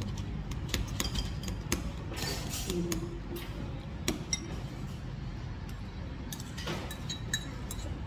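Metal spoon and ceramic bowls clinking and knocking as noodles are served and stirred, with scattered light clinks throughout over a steady low background hum.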